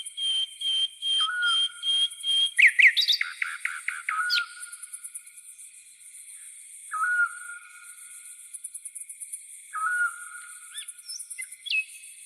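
Night birds calling over a steady, pulsing chirr of crickets and cicadas. One bird repeats a single short whistle about every three seconds. Another gives a run of evenly spaced, higher whistled notes, then a quick burst of rising notes about three seconds in.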